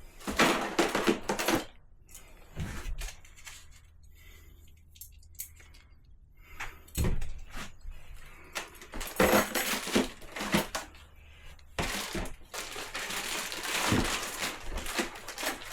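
Small plastic RC parts and their packaging being handled: irregular rustling with clicks and light knocks, in several bursts with short pauses between them.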